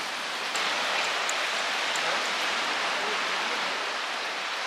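Steady rushing noise of sea surf breaking on a rocky shore, a little louder from about half a second in.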